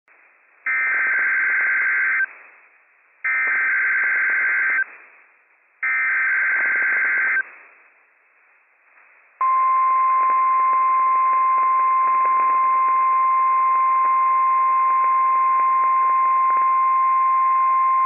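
NOAA Weather Radio SAME header: three bursts of warbling two-tone data, each about a second and a half long, with short pauses between. About nine seconds in comes the steady 1050 Hz warning alarm tone, received over the radio with a hiss behind it.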